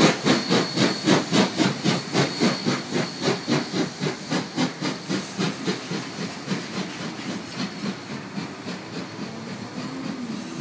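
NSWGR C35 class steam locomotive 3526 working its train, its exhaust beating evenly at about four beats a second and fading as it draws away.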